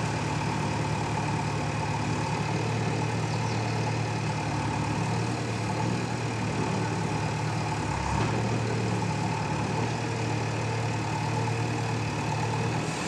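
A heavy engine running steadily at idle with a low, even hum, typical of machinery working on a construction site.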